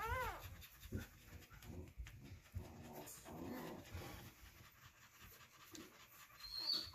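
Nursing mother dog panting softly, with her newborn puppies crying: a wavering whine right at the start and a short high squeak near the end.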